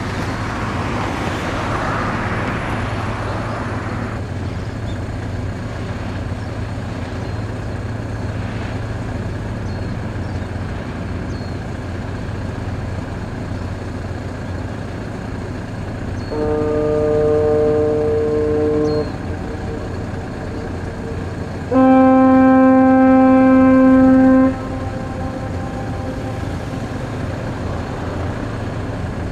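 Two long ship's horn blasts at different pitches, each about two and a half seconds: the first about two-thirds of the way in, the second, louder, about three seconds after it ends. A steady low rumble runs underneath.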